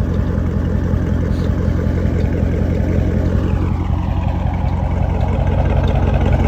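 Dodge Charger Scat Pack's 6.4-litre HEMI V8 idling steadily.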